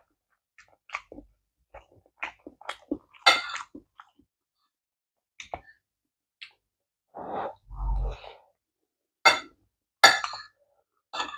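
Close-miked eating sounds: wet chewing and lip smacks as a string of short, sharp clicks, with a metal spoon scraping and clinking on a ceramic plate. About eight seconds in there is a longer breathy stretch over a brief muffled low thump.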